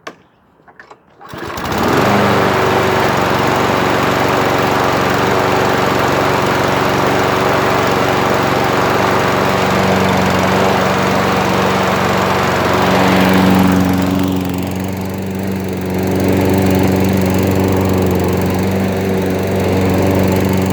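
Toro Recycler 20332 walk-behind lawn mower's engine starting about a second and a half in, then running steadily. The governor spring tension has just been tightened by bending its tab to bring the engine up to its proper speed.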